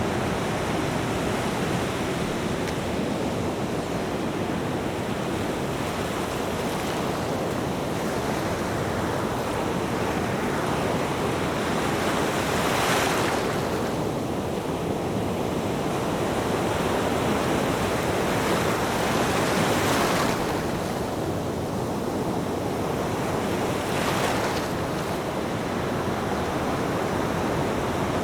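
Ocean surf: a continuous wash of waves, with three larger breakers surging in the second half.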